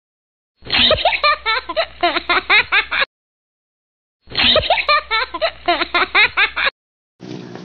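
Giggling laughter in quick repeated pulses, in two bursts of about two and a half seconds. Each burst cuts off abruptly into dead silence, like a looped laughter clip.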